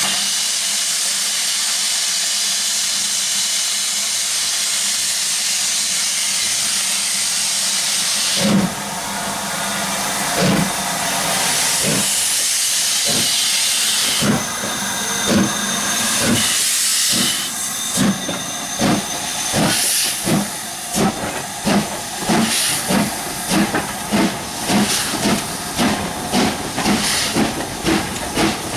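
Steam locomotive standing with steam hissing, then starting away. Exhaust chuffs begin slow and uneven about eight seconds in, then settle into a quickening beat of about two chuffs a second, with hissing from the open cylinder drain cocks throughout.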